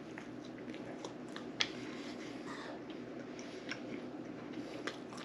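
A person chewing a mouthful of bacon cheeseburger close to the microphone: soft, irregular wet mouth clicks, one sharper about one and a half seconds in, over a faint steady hum.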